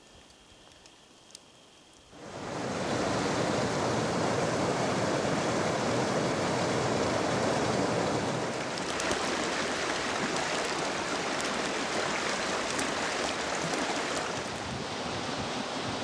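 Rushing water of a partly frozen stream tumbling beneath ice and icicles: a steady, loud rush that starts suddenly about two seconds in and eases a little near the end.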